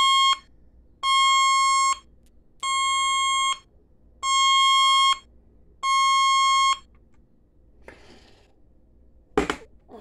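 Alert siren of a Radio Shack 12-248 pocket weather radio: a steady, shrill tone beeping on and off, each beep about a second long with a short gap between, stopping about seven seconds in. A short knock near the end.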